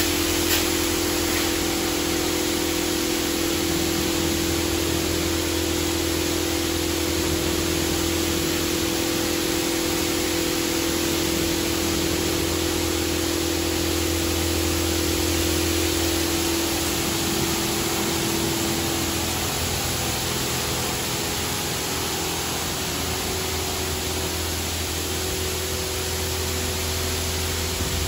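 Ryko Radius HT touchless car wash gantry spraying high-pressure water over a minivan: a steady hiss of spray over the machine's hum. The hum's tone shifts about two-thirds of the way through.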